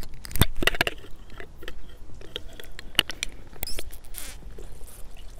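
Sipping a drink through a metal straw right at a clip-on microphone: small wet mouth and lip clicks and sucking sounds, with a short airy slurp about four seconds in.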